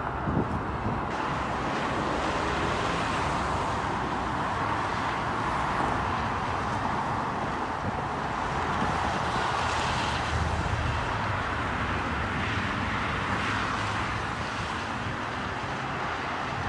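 Steady hiss of highway traffic: tyres of passing cars on the road.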